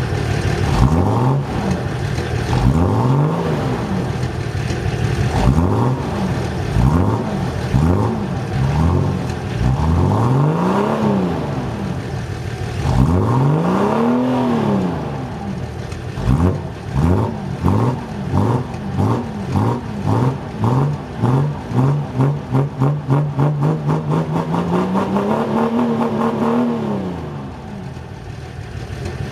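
Six-cylinder car diesel engine being free-revved: about a dozen quick blips up and back down. In the second half it is held at a slowly rising speed with a rhythmic pulsing about twice a second, then drops back toward idle near the end.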